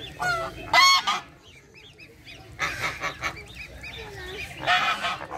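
A flock of flamingos honking: repeated nasal calls in three bouts, the loudest about a second in.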